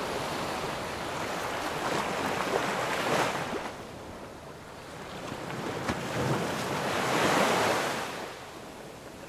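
Sea waves and wind: a rushing wash that swells and ebbs twice, loudest about three seconds and about seven and a half seconds in.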